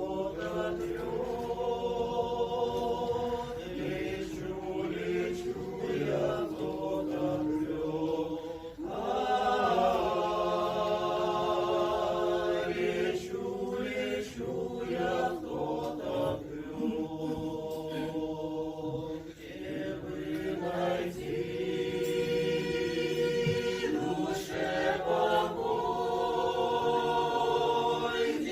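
Folk vocal ensemble singing a song in chorus, several voices holding long notes together.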